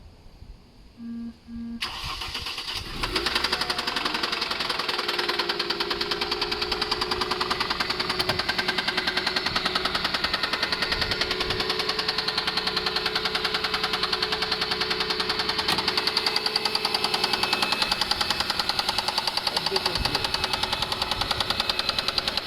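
Mercedes-Benz W210 E280 4MATIC engine cranking and catching about two seconds in, then idling with a regular, rhythmic knock: the engine knock the owner is chasing, cause not yet known.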